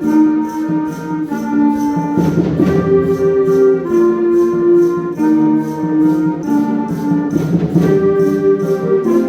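Concert wind band playing a Christmas piece: sustained brass and woodwind chords moving every second or so over shaken percussion keeping a steady beat, with cymbal crashes about two seconds in and again near the end.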